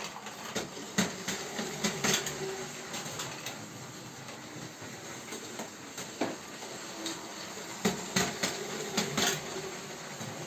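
Toy Lego train running on plastic track: a steady running noise with many sharp clicks and plastic rattles, busiest about a second in and again about eight seconds in.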